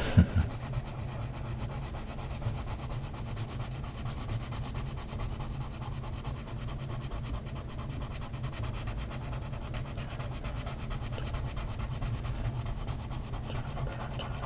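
Colored pencil shading on paper in rapid, even back-and-forth strokes, a steady scratchy rubbing. A brief low knock comes right at the start.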